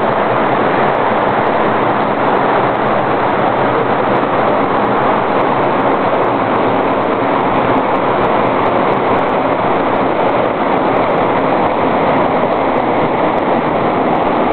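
Small waterfall pouring, a loud, steady rush of falling water.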